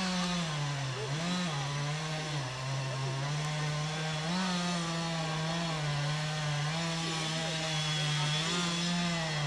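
A small engine running, its speed wavering up and down in light revs.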